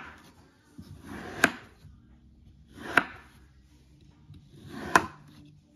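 A knife slicing down through a moulded block of kinetic sand, four cuts about one and a half to two seconds apart. Each cut is a gritty crunch that builds for about half a second and ends in a sharp tap as the blade reaches the plastic tray.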